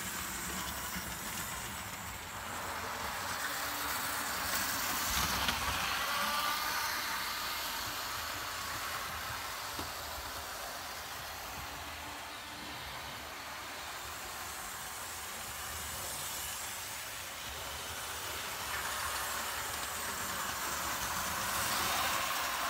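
Several Hornby OO gauge electric model trains running on the layout: a steady whirring hiss of small motors and wheels on the track. A faint rising whine comes about five seconds in, and the sound swells near the end as a train passes close.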